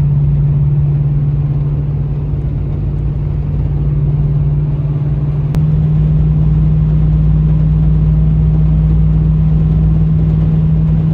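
Ram 1500 pickup cruising at highway speed, heard from inside the cab: a steady low engine and tyre drone. The hum's pitch steps slightly about halfway through.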